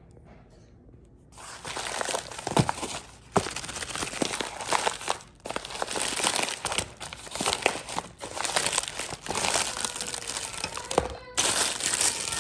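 Packaging crinkling and rustling as it is handled, starting about a second in and going on in dense crackly stretches with a few short pauses.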